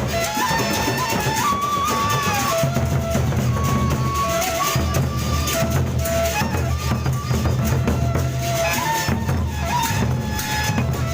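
Gendang beleq, the Sasak drum ensemble, playing: large drums keep a steady beat under a high melody line that steps up and down.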